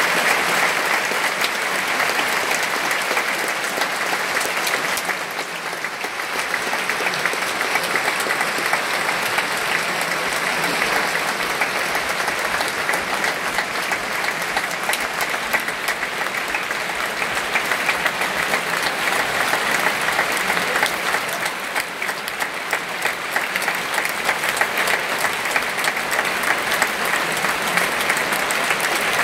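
A large concert-hall audience applauding: dense, steady clapping from many hands, dipping slightly in level twice before picking up again.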